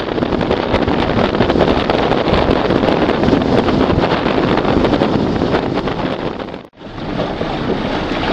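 Loud wind buffeting the microphone on an open boat, a rough steady rush with no clear engine note. It drops out briefly near the end, then resumes.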